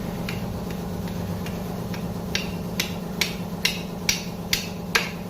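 Repeated sharp hammer taps on a motorcycle engine part, about two a second, growing louder a couple of seconds in, over a steady low hum.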